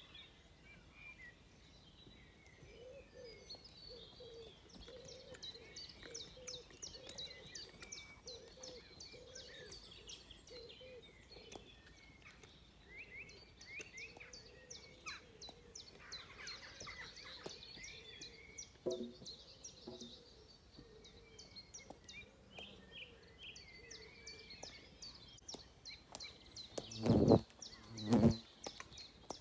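Birds singing and chirping on and off throughout. Near the end, a wasp buzzes loudly right at the microphone in two short bursts, much louder than the birdsong.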